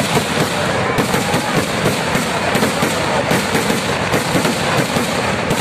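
Kerala temple-festival fireworks (vedikkettu) going off as a dense, unbroken barrage of rapid bangs and crackling, too fast to count.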